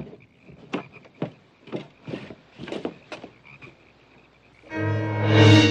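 Frogs croaking at night, a croak roughly every half second, over a faint steady high trill. About four-fifths of the way in, a loud, sustained music chord with a deep bass note comes in and drowns them out.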